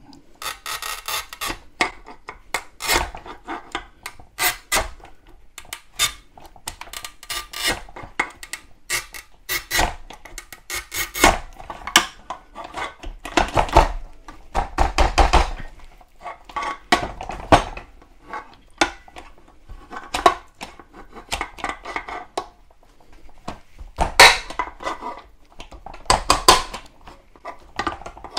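Montolit Minipiuma manual tile cutter scoring and snapping a sheet of hexagon mosaic tiles: the cutting wheel and handle clatter over the small ceramic pieces in repeated passes of dense clicks and crackles, the loudest clusters about halfway through and again near the end, where the breaker is pressed down to snap the row.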